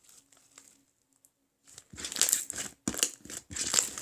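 Hands squishing and stretching slime, giving a dense run of irregular crackling, popping clicks that starts about two seconds in after a nearly quiet start.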